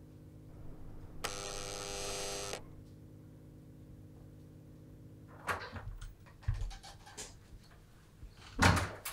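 Wall-mounted apartment intercom buzzer sounding once, a harsh buzz lasting a little over a second. Later come scattered clicks and knocks and one loud thump near the end as a door is opened.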